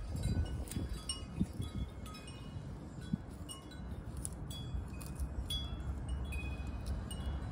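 Wind chimes tinkling irregularly, many short clear ringing notes, over a steady low rumble.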